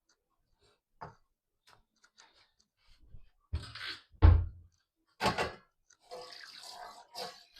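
A few irregular knocks and thuds, the loudest a heavy low thud about four seconds in, followed by a stretch of rough clattering noise near the end.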